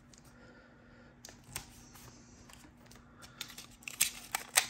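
Scotch tape being handled and applied to a paper envelope: quiet at first, then a scatter of short clicks and taps as tape is torn off and pressed down, loudest near the end.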